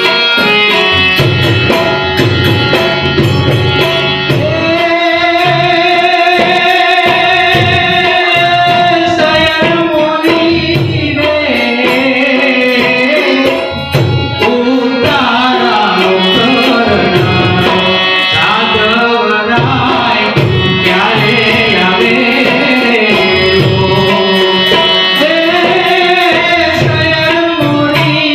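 A man singing a Gujarati folk song (lokgit) into a microphone, accompanied by harmonium and tabla, with the tabla keeping a steady rhythm under long held vocal notes.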